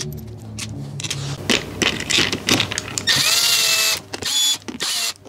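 Screws clicking into a motorcycle fuel cap by hand, then a cordless drill-driver with a Torx bit driving the T25 socket cap screws in. About three seconds in, its motor whine rises and runs for about a second, then comes in two short trigger bursts.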